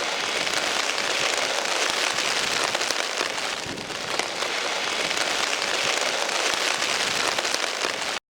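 Steady patter of falling water, dense with fine drop-like ticks, cutting off suddenly near the end.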